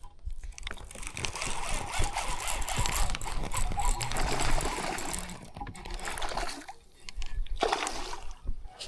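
Water splashing and trickling for several seconds, dying down, then a shorter splash about eight seconds in.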